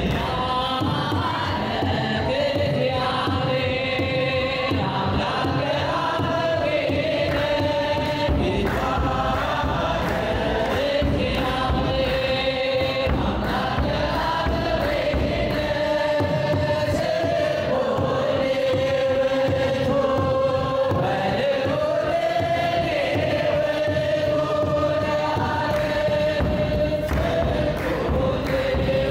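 Mixed choir singing an Eritrean Orthodox mezmur in Ge'ez in unison, a lead voice among them, over a steady beat of kebero drum strokes and hand-claps.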